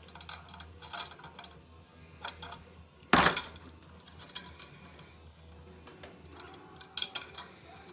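Small metal clicks and clinks of a stainless steel high-pressure pipe and its fitting nut being handled and threaded onto a compressor head fitting, with one loud metallic clank a little after three seconds.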